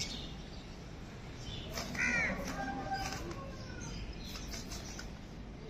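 A crow cawing once, about two seconds in, over a steady background hum of outdoor noise.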